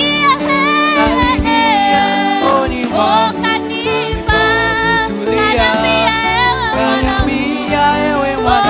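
Gospel singing: a woman's lead voice into a microphone, with other voices and instrumental backing.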